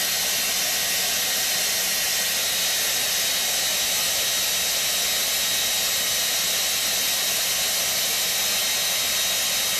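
Handheld hair dryer running steadily, blowing air: an even rushing hiss with a thin high whine over it.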